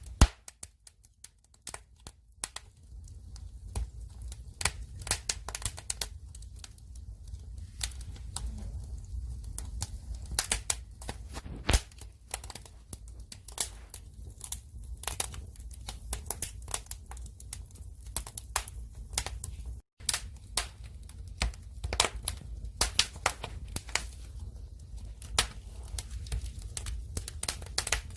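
Wood fire burning, with logs crackling and snapping in irregular sharp pops over a low steady rumble. The sound drops out for a split second about twenty seconds in.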